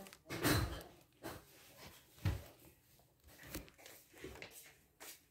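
Plastic bags and packed items being handled inside a cardboard box: a series of short rustles and bumps, loudest about half a second in.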